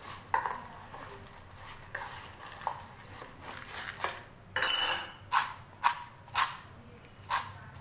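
A steel spoon stirring crisp fried chana dal in a stainless steel bowl, with light scraping and clinking as the spice mix is worked in. From a little past halfway, the bowl is shaken and the dry dal rattles in it in swishes about twice a second.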